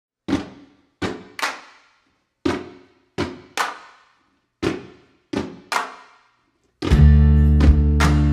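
Foot stomps on a closet door laid flat on a wooden floor, mixed with hand claps, in a slow repeating pattern of one hit followed by two quicker ones, each ringing out briefly with reverb. Near the end, strummed guitar and bass come in.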